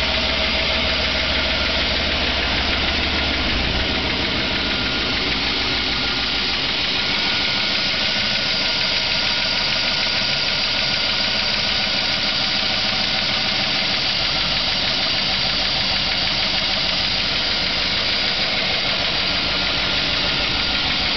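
2008 Chevrolet Avalanche's V8 idling steadily shortly after a cold start, with a knocking running through it that the owner has been reporting to the dealer; to him it seems worse from under the wheel well.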